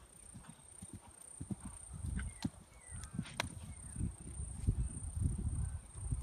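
Horse cantering on grass turf, its hoofbeats thudding in repeated low strikes that grow denser about two seconds in.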